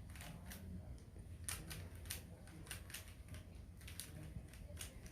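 Plastic Rubik's cube layers being turned by hand through an algorithm, a quick irregular series of sharp clicks, about two or three a second.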